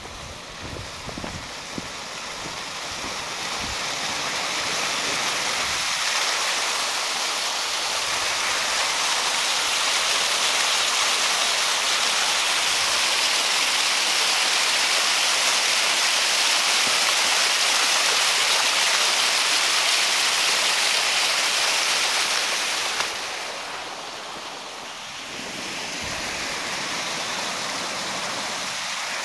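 Small mountain waterfall rushing and splashing down a cascade of mossy rocks. A steady, dense rush of water swells over the first several seconds to a loud plateau, then drops back sharply about three-quarters of the way through.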